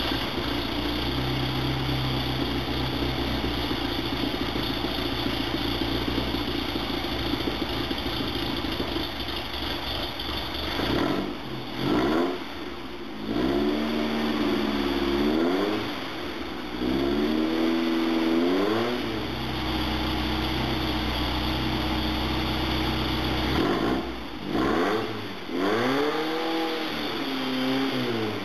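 Air-cooled VW Type 1 1600 cc flat-four engine running on its first start after a repair. It runs steadily, then from about halfway through it is revved up and let fall back several times by hand at the carburettor throttle, its pitch rising and dropping with each rev.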